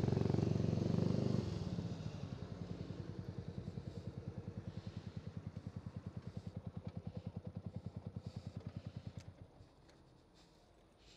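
Yamaha YZF-R125's 125 cc single-cylinder four-stroke engine idling with an even, rapid pulsing beat. It is louder for the first second and a half, then dies away about nine and a half seconds in.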